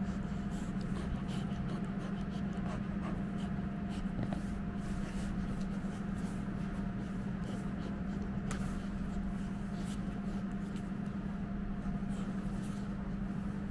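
Soft scattered clicks and scratches from a Great Pyrenees puppy mouthing a rope toy close to the microphone, over a steady low hum.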